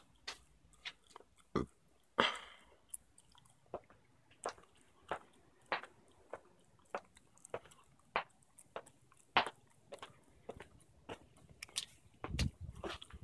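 Footsteps at a steady walking pace, sharp taps about one and a half a second, with a short scrape about two seconds in and a louder, lower crunching near the end.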